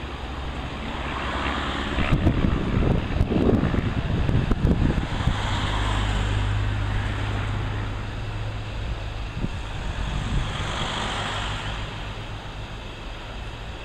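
Van's RV aerobatic light aircraft's piston engine and propeller droning overhead, swelling and fading twice as it manoeuvres. Wind buffets the microphone, loudest in the first few seconds.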